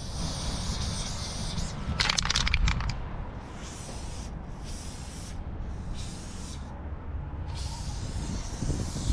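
Aerosol spray-paint can hissing in bursts as the nozzle is pressed and released, with a short run of rattling clicks about two seconds in, over a low rumble.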